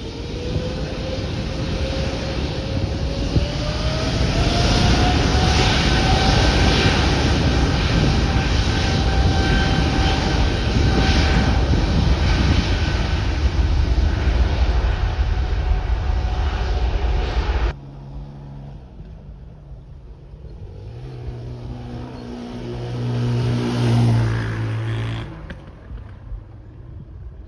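Boeing 777's jet engines spooling up to takeoff thrust: a rising whine that levels off over a heavy, steady rumble. About two-thirds of the way through it cuts off suddenly to a quieter jet drone that swells and fades as an airliner climbs away.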